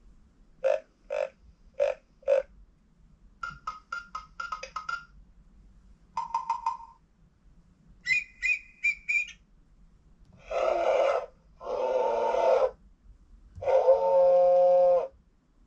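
Recorded animal sound effects played in turn through an electronic talking book's small speaker: a string of short separate calls, clicks and chirps, then three longer calls in the last few seconds.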